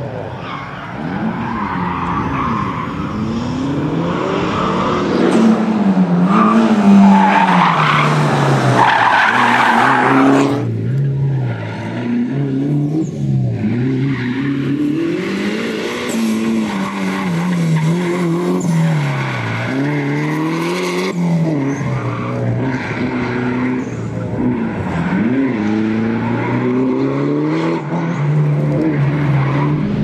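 Mitsubishi Lancer Evo V's turbocharged four-cylinder engine revving up and falling back over and over as it is driven hard through tight turns, with tyres squealing from about five to ten seconds in.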